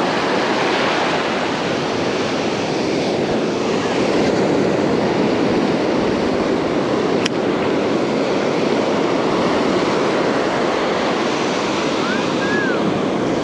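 Ocean surf breaking and foam washing up the beach, a steady rush of water. One sharp click about halfway through.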